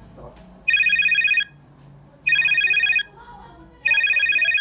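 Brondi DC2060 phone playing an electronic trilling ringtone: three short trills, each under a second long and about one and a half seconds apart.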